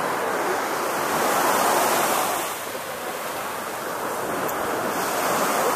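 Surf washing ashore: a steady wash that swells about a second in, eases near the middle and builds again, with some wind on the microphone.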